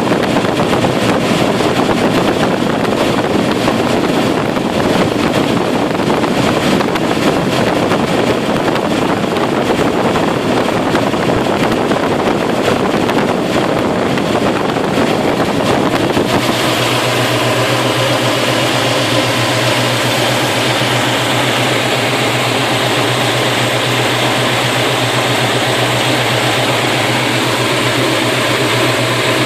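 Rebuilt Chevy 350 small-block V8 idling steadily, with ignition timing advanced to 36 degrees and manifold vacuum still low at about 15 inches. About 16 seconds in, the sound changes and a steady low hum comes to the fore.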